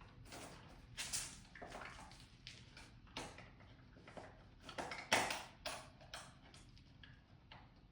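Irregular clicks, knocks and short splashy bursts, the loudest about five seconds in, as a bottle of motor oil is handled and poured into the engine.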